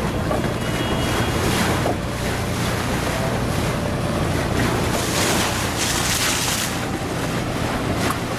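Boat ride on open water: wind buffeting the microphone and water rushing along the hull over a steady low engine drone.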